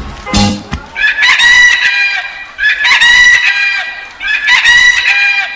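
A rooster crowing three times in a row, each crow lasting over a second and dropping in pitch at its end.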